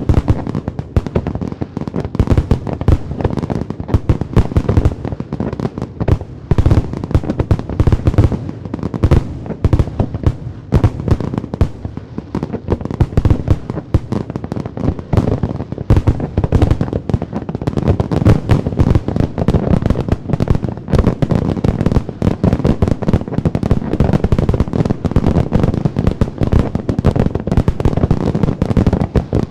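Fireworks display: a dense, continuous barrage of bangs and crackling pops, many bursts a second with no pause.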